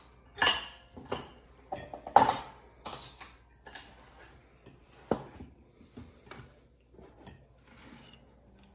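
Ceramic tableware handled on a wooden breakfast table: a mug and a shaker picked up and set down, giving a scattering of irregular knocks and clinks, the loudest about two seconds in.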